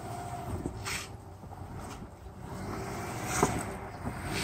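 Subaru Forester's flat-four engine running at low revs as it crawls over boulders, with tyres and underbody crunching on rock. There is a sharp knock about a second in and a louder one about three and a half seconds in.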